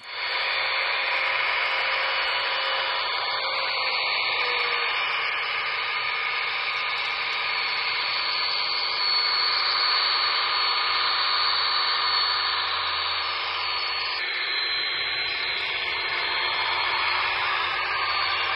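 Broadway Limited Paragon4 HO-scale GP35 model diesel locomotive running with its onboard sound playing a steady diesel engine sound through a small speaker: an even hiss with little deep bass. A faint low hum comes in about eleven seconds in.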